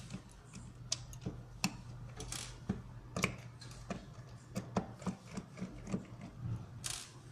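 Irregular light clicks and taps, several in quick succession at times, over a steady low hum.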